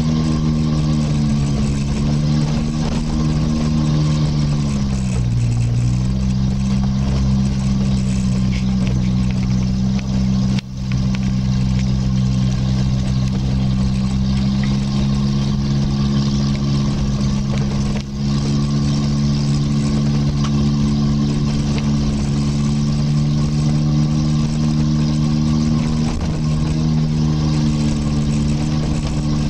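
Engine of an off-road vehicle driving up a gravel mountain track, heard from inside. It runs at steady revs over a constant hiss of tyres on gravel, and its note dips briefly about five seconds in before settling again. The sound cuts out for an instant twice.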